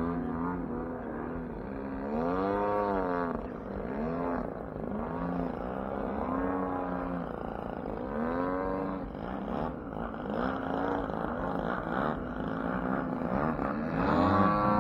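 Engines of radio-controlled model airplanes in flight, the buzzing note rising and falling over and over as the planes dive, climb and pass. Near the end a steadier, louder engine note comes in.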